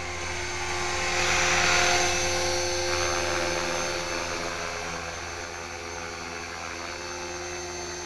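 HK-450GT electric RC helicopter in flight: a steady whine from its motor and rotors holds level pitch. The noise swells louder about a second in and eases off after about three seconds.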